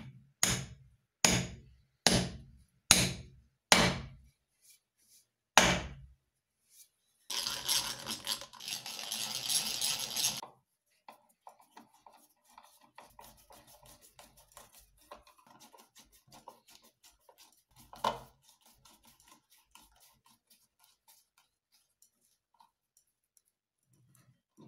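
A wooden mallet knocks a wooden workpiece six times, about once a second. About three seconds of dense rasping noise follows. Then come faint clicks and creaks of a hand screwdriver driving a screw through a washer into the wood, with one sharper knock partway through.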